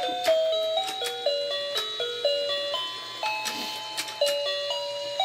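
Electric rotating fishing-game toy playing its electronic tune, a simple melody of steady beeping notes stepping up and down, with scattered light clicks over it.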